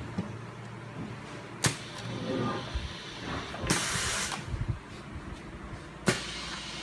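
Semi-automatic rotary heat press for blister-card sealing running through its cycle over a low steady hum: a sharp clack about a second and a half in and another near the end, a brief whir around two seconds, and a half-second burst of air hiss in the middle.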